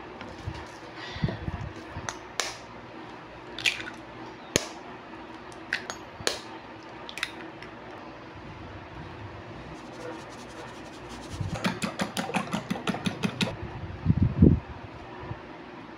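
Kitchen utensils mashing and mixing sweet potato in a glass baking dish: scattered clicks and scrapes against the glass, then a quick run of taps about two-thirds of the way through, followed by a couple of dull thumps.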